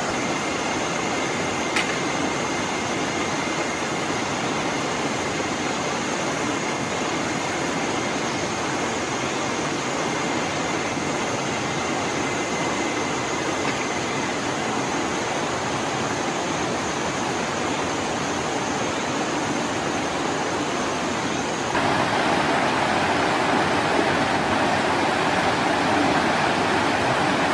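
Mountain stream rushing over rocks: a steady wash of running water. A faint steady high whine runs alongside until about three quarters of the way through, when it stops and the water becomes louder.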